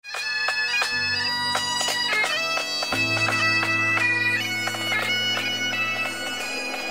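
Great Highland bagpipes playing a tune: a melody of held notes, broken by quick grace-note flicks, over a steady drone that sounds fully from about a second in.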